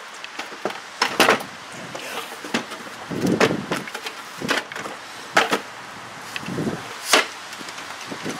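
Sharp plastic clicks and knocks with softer rubbing as a Volvo 940 headlight assembly is handled and unclipped by hand, about half a dozen separate clicks spread over several seconds.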